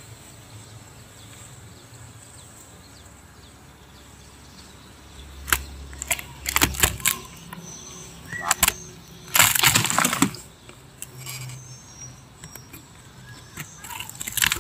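Sharp cracks and crackles, in several clusters from about five to ten seconds in, as the torn wooden sofa frame and padding around a honeybee nest are handled and broken.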